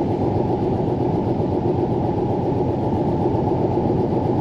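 Steady rumble of a vehicle's engine and tyres heard from inside the cab while driving at about 40 miles an hour on a snow-covered road.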